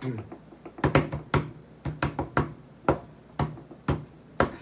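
A steady beat of sharp taps or snaps, about two a second, starting about a second in.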